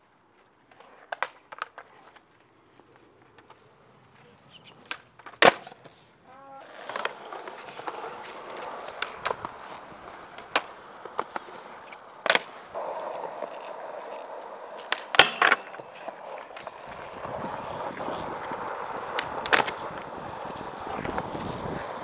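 Skateboard wheels rolling on concrete, with repeated sharp clacks and impacts as the board pops and lands. The first few seconds are mostly quiet with scattered clicks; the rolling noise starts about six seconds in and runs on under the impacts.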